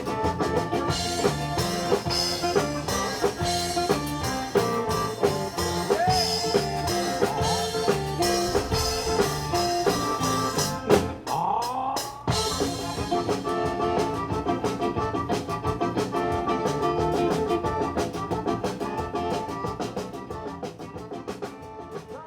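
Band music with a drum kit and a steady beat, without vocals. It breaks off briefly about halfway, with a sliding sound, then picks up again and fades out near the end.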